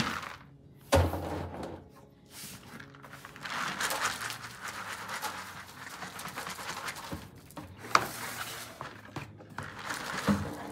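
Plastic buckets knocking on a tiled floor, with a loud thunk about a second in and two more later, and soft rustling between them as wet grain is tipped out of a bucket.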